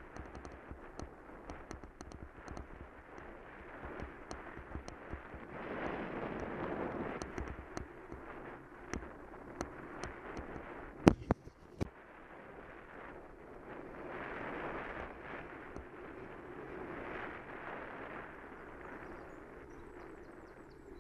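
Wind buffeting the microphone and tyre rumble while riding a bicycle along a road, swelling and easing every few seconds, with scattered small clicks and one sharp knock about eleven seconds in.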